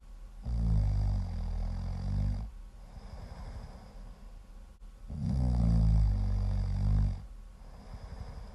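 Very loud snoring: two long, rumbling snores, each about two seconds, the second starting about five seconds in, with softer breathing between them.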